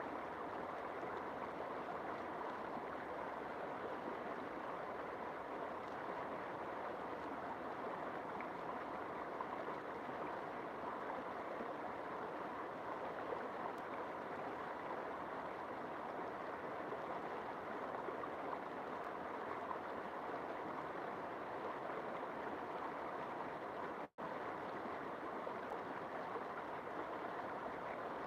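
River water flowing, a steady, even rushing with a momentary break near the end.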